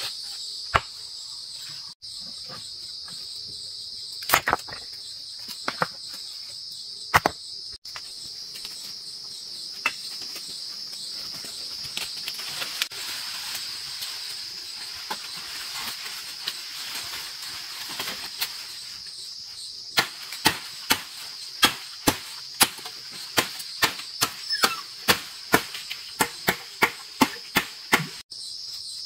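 Crickets shrilling steadily, with scattered sharp knocks of hand work. In the last third the knocks come in a steady run of about two a second, like repeated chopping.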